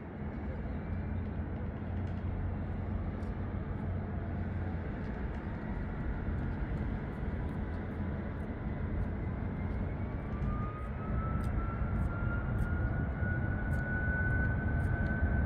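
Boeing 757 freighter's twin Pratt & Whitney PW2040 turbofans running with a steady jet rumble, then spooling up for takeoff from about ten seconds in: a whine rises in pitch as the rumble grows louder.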